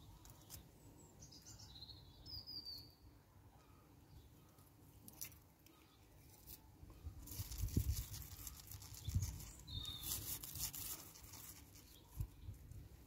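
Faint garden ambience with a few short bird chirps, about two seconds in and again near ten seconds. Between about seven and eleven seconds there is a spell of rustling with soft low bumps as a cat plays with a leafy stem waved over the grass.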